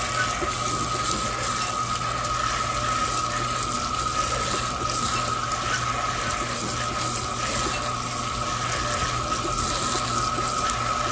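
Kitchen faucet running steadily, water pouring onto canned kidney beans and chili beans in a plastic colander to rinse off the canning liquid. A steady high whine runs along with the rush of water.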